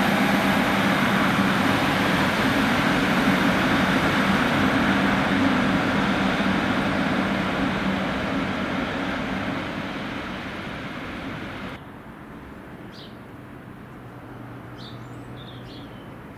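A train running past, a steady low drone under loud rushing noise, fading away over several seconds and then cutting off suddenly about twelve seconds in. After that a quieter background with a few short bird chirps.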